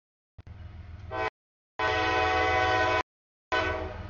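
CSX diesel locomotive's air horn sounding for a grade crossing: a short blast about a second in, a long blast, then another blast near the end, over the low rumble of the freight train passing. The audio cuts out abruptly to silence between blasts.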